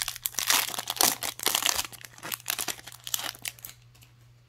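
Wrapper of a Topps baseball card pack crinkling as it is torn open and pulled off the cards, a dense crackle that is loudest in the first two seconds and stops about three and a half seconds in.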